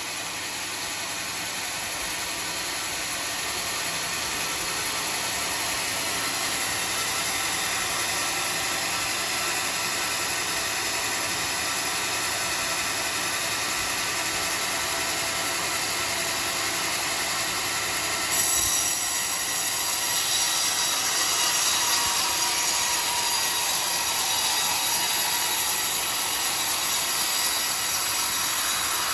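Homemade band sawmill running with its blade cutting through a teak log: a steady mechanical whine and rasp that grows louder over the first several seconds. About eighteen seconds in, the sound turns suddenly sharper and brighter.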